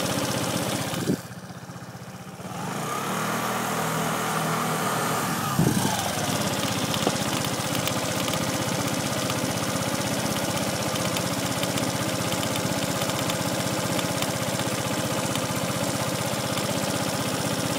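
Suzuki GSR fuel-injected scooter's single-cylinder engine running. About two and a half seconds in it picks up with a steady whine from the spinning rear wheel drive, and about three seconds later the whine falls away with a click as the wheel coasts down, followed by steady idling. This is the abnormal noise from the rear wheel while it coasts before stopping.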